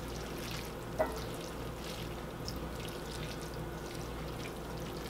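Spaghetti being tossed in olive oil in a cast iron skillet with silicone-tipped tongs: faint wet slithering and light ticks, with one small click about a second in, over a steady low hum.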